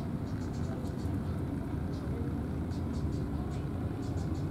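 Steady low rumble of outdoor background noise, with faint short high ticks scattered through it.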